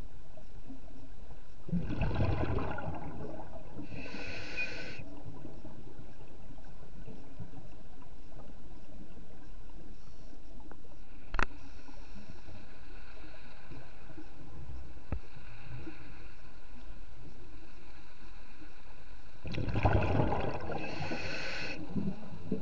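A scuba diver breathing through a regulator underwater. Exhaled bubbles rumble about two seconds in and the regulator hisses on the inhale a couple of seconds later, then another breath comes near the end. A steady underwater hiss runs underneath, with one sharp click near the middle.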